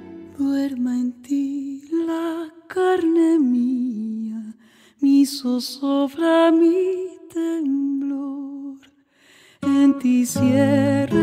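A solo voice singing a slow lullaby melody with vibrato, in short phrases separated by pauses. Near the end, instruments come in under it.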